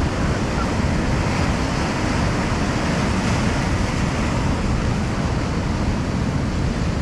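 Ocean surf breaking and washing over shoreline rocks, a steady rush of water.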